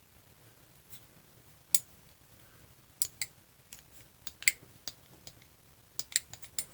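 Small metal carburetor parts and hand tools clicking and tapping as they are handled, in about a dozen irregular sharp clicks that come thickest in the last second.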